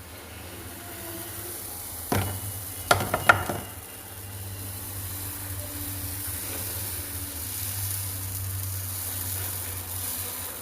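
Dosa batter sizzling steadily on a hot griddle, with a few sharp knocks about two to three and a half seconds in.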